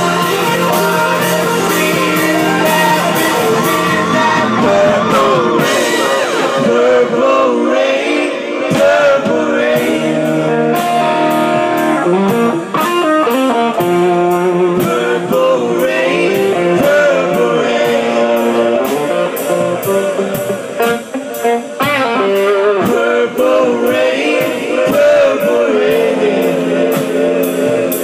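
Live band playing a pop-rock song: voices singing over electric guitar and keyboard, with a steady beat.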